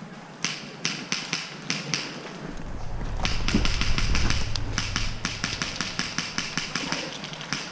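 Airsoft gunfire: sharp snapping shots, a few scattered at first, then a fast string of about five a second from about three seconds in. A low rumble comes in under it about two and a half seconds in.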